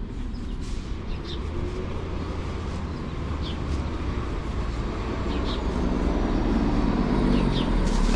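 Street traffic: a motor vehicle's engine and tyres rumbling, growing louder over the last few seconds as it comes closer, with a few short high chirps over it.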